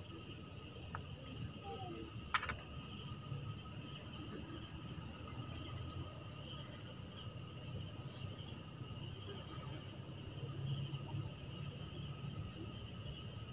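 Faint, steady chorus of night insects such as crickets, with a single sharp click a little over two seconds in.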